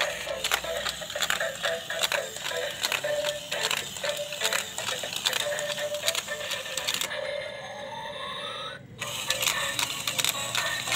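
Dancing octopus robot toy playing a thin, tinny electronic tune through its small built-in speaker, with rapid mechanical clicking from its gear motor as it moves. Near the end a rising sweep plays, the sound breaks off briefly, and then the tune starts again.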